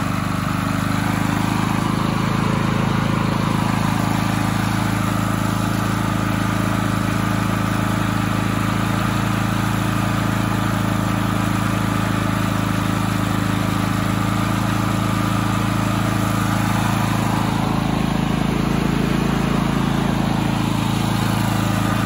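Cummins Onan P4500i inverter generator's single-cylinder OHV engine running steadily at an even pitch after starting. It runs now that the faulty light indicator module, which had been cutting the spark, has been replaced.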